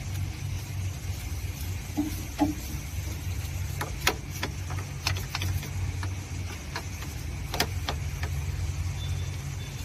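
Small detailing brush scrubbing and knocking against plastic and metal parts in a car's engine bay, loosening dry dirt, with several sharp clicks. A steady low rumble runs underneath.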